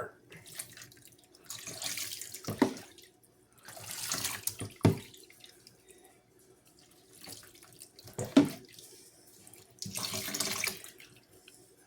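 Kitchen sink water rinsing a puppy, splashing in three bursts of about a second each, with a few short splashes or knocks between them.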